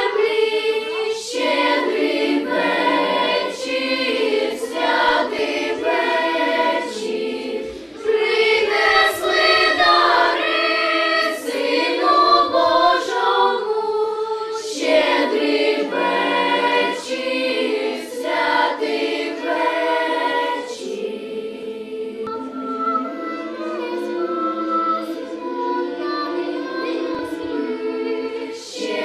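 A choir singing, set to music.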